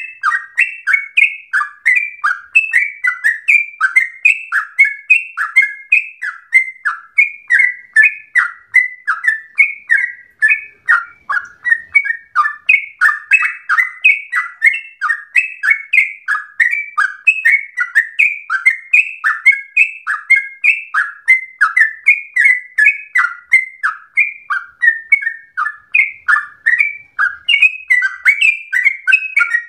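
Yellow-vented bulbul (trucukan) singing a long, unbroken run of rapid, liquid bubbling notes, about three to four a second.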